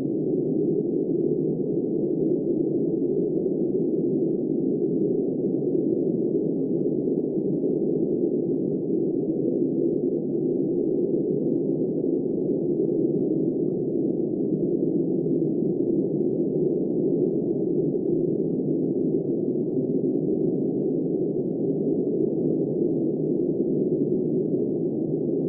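Steady, muffled blizzard wind: an unbroken dull rush with no hiss, gusts or clicks.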